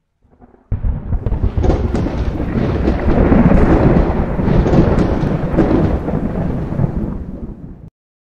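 Thunder-like rumble sound effect of an animated logo intro, long and loud, with a few sharp cracks in it. It starts under a second in and cuts off suddenly near the end.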